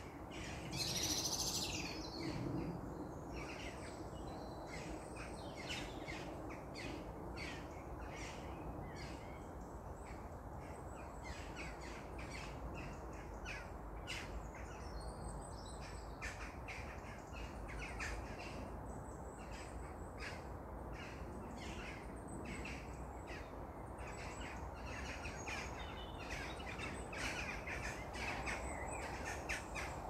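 Wild birds chirping and calling in many quick short notes from the trees, with a louder hissy burst about a second in, over a steady low background rumble.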